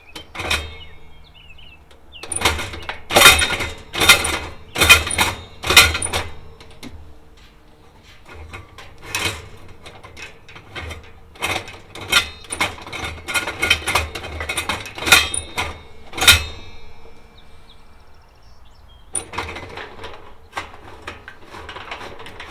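Sharp clicks and knocks from the controls and casing of a Kero-Sun Omni 85 kerosene heater being worked during an attempt to fire it with its igniter. The loudest are a cluster of about five knocks a few seconds in, followed by a longer run of fainter clicks and then a soft rustling noise near the end.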